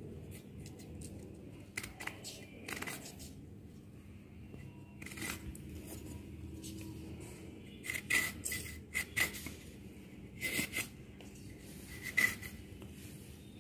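Steel pin of a wooden marking gauge scratching along a piece of wood, scoring a line in a series of short strokes, the louder ones in the second half.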